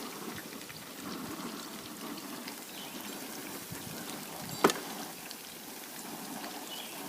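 Battered onion rings deep-frying in hot grease, a steady crackle and spatter like light rain. One sharp click about halfway through.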